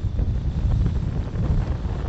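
Wind buffeting the microphone of a camera on a moving car: a loud, uneven low rumble mixed with the road noise of the drive.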